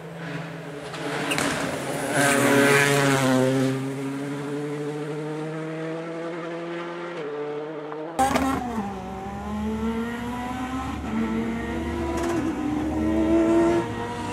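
Rally car engine revving hard, pitch climbing steeply for a couple of seconds and then falling away. After a sudden cut, a Peugeot 306 Maxi rally car's engine approaches, its revs rising again near the end.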